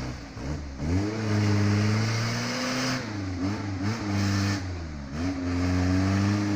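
Off-road vehicle's engine revving under varying throttle, its pitch dropping and climbing again several times, with a longer steady rise near the end.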